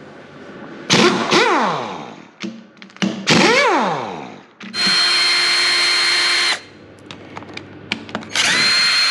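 Power tools, an air impact wrench and a cordless drill, undoing the cover bolts of a Hyundai Ioniq electric drive motor: two short bursts whose whine falls in pitch as they wind down, then a steady high whine with hiss for about two seconds, and another starting near the end.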